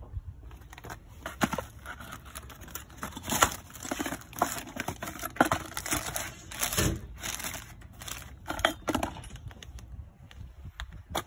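Plastic bag and cardboard packaging of new tie rod parts being handled, crinkling and rustling in irregular crackles with louder rustles here and there.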